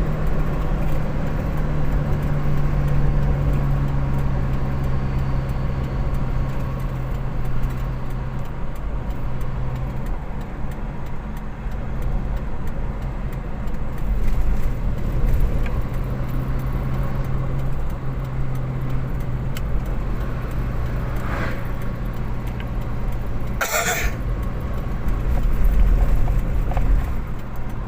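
Car engine running steadily with a low drone. Near the end come two short sharp noises, the second louder, which the uploader takes for a person coughing in the dark.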